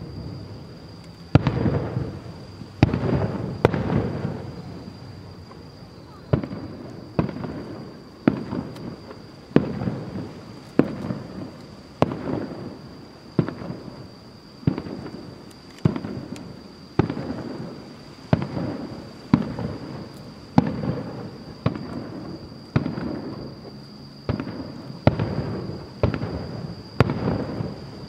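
Aerial firework shells bursting in steady succession, about one sharp bang a second, each followed by a rolling echo that dies away.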